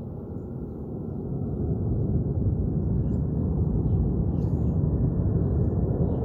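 Distant Boeing 737-800 jet engines (CFM56-7B) making a low rumble that grows louder over the first two seconds and then holds steady, as they run up to takeoff thrust.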